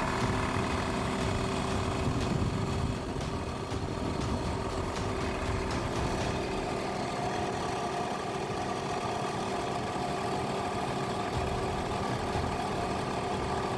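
Piston air compressor running steadily, pumping up its tank after a cylinder head gasket replacement; the head no longer leaks air and the tank charges quickly. Its level dips slightly about three seconds in.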